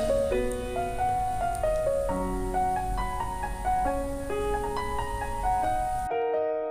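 Background music: a slow piano melody of single held notes, over a low hum that cuts off near the end.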